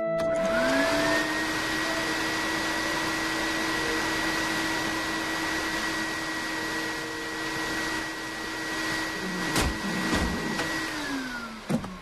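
Cartoon vacuum cleaner switching on with a rising whine, running steadily with a high whine over a rushing hiss, then winding down in pitch near the end. Two sharp knocks sound shortly before it winds down.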